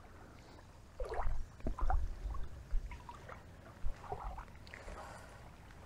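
Small waves lapping at the lake's edge, with low rumbling wind gusts hitting the microphone about one to two seconds in.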